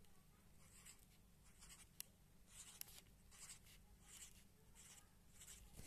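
Felt-tip marker drawing small circles on cardboard: faint, short scratchy strokes, one after another about every second or less, with an occasional light tick of the tip.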